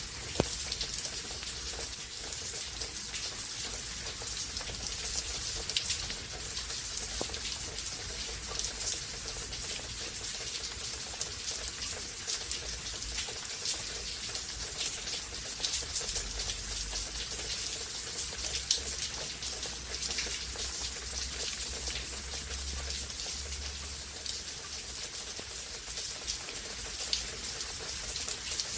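Steady rain falling, a dense hiss of many fine drops with scattered sharper drop ticks.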